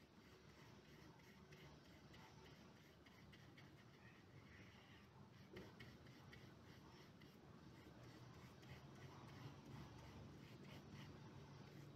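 Near silence, with faint rubbing and small ticks of a paintbrush spreading paint across paper.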